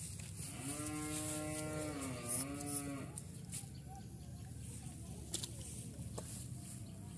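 A cow mooing: one long, even call lasting about two and a half seconds, dipping in pitch briefly near its end. A few faint clicks follow.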